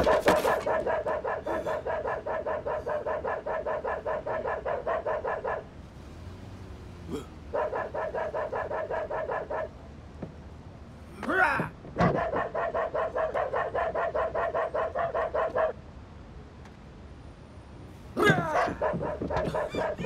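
A dog yapping in rapid, evenly spaced barks at a steady pitch, about six a second, in four long runs with pauses between. Short sliding cries cut in before the third and fourth runs.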